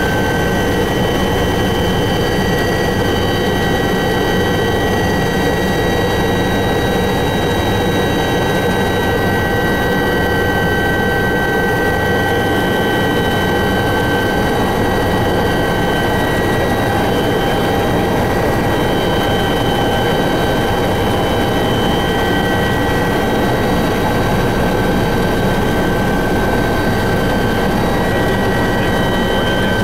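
Helicopter cabin noise in flight: a loud, steady drone of the engine and rotor with several steady high whining tones over it.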